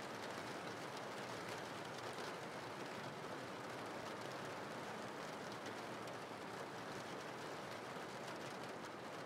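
Steady rain: an even, low hiss of falling rain with a faint patter of drops.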